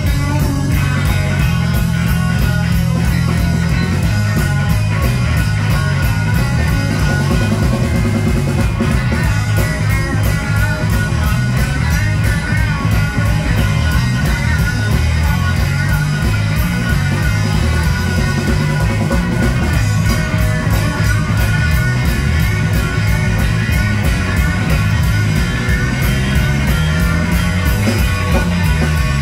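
Live band playing loud, steady blues-rock: electric guitars and bass guitar over a driving drum beat.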